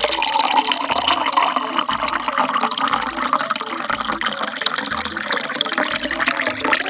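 Water poured in a steady stream into a glass with ice cubes, a continuous splashing fill that stops near the end.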